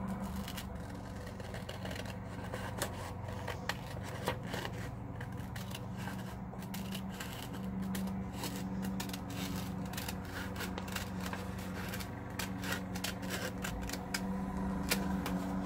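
Scissors snipping through folded paper, with repeated sharp clicks of the blades and the rustle of the sheets being handled.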